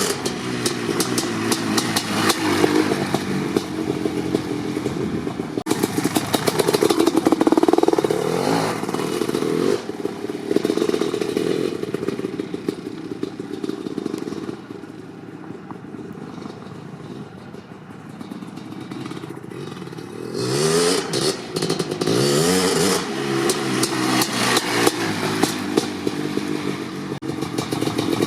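1988 Kawasaki KX500's single-cylinder two-stroke engine, fitted with an FMF Fatty pipe and DEP silencer, running while it warms up from a cold start and being revved by blips of the throttle. One rev rises and falls about seven seconds in, the engine runs lower and steadier in the middle, and then there are several quick revs after about twenty seconds.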